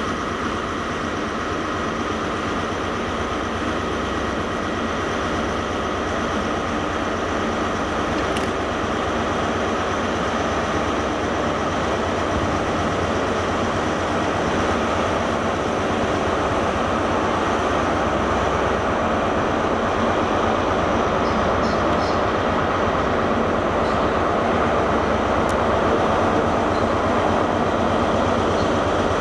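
Diesel train engines running steadily at a station, a continuous mechanical drone with steady tones in it, growing gradually louder.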